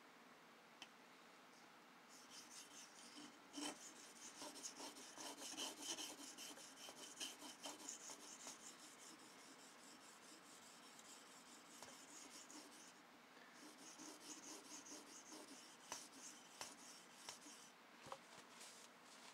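Faint, quick rubbing and scraping strokes against a knife blade, in two spells with a short break between, and a few light clicks near the end.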